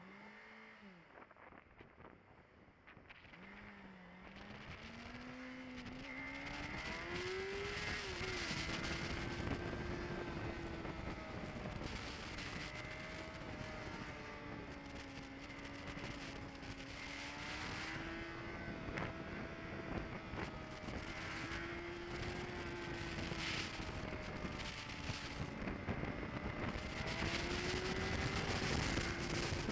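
Motorcycle engine picking up speed, its pitch rising over the first several seconds, then running at a steady cruise with small rises and falls in pitch. Wind and road noise build up with it and grow loud.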